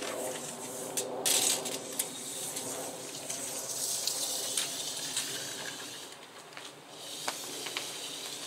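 Footsteps and shoe scuffs on a concrete slab, with scattered light clicks and a louder scrape about a second in, over a faint steady hiss.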